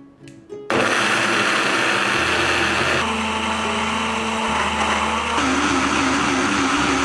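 Small bottle blenders' motors and blades running in turn on cabbage and water: a steady, loud whirring that starts suddenly about a second in. It changes character about three seconds in, when the Toffy vacuum bottle blender takes over, and again a little past five seconds for the BRUNO mini bottle blender.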